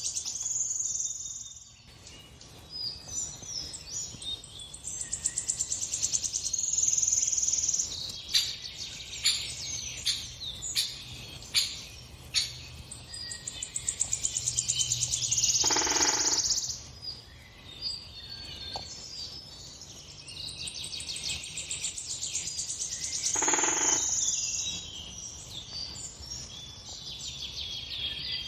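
Birdsong from a bird video for cats playing on a TV: rapid high chirps and trills from small songbirds, with two longer, lower calls in the second half.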